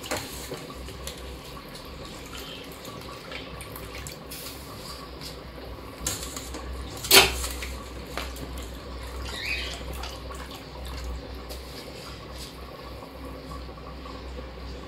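Washed rice being tipped into a pot of boiling water, with watery splashing and small scraping noises. A sharp clink of a utensil against the pot comes about seven seconds in.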